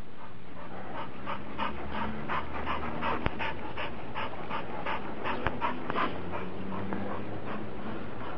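A dog panting fast and hard, about four breaths a second, as after running. Two sharp clicks stand out partway through.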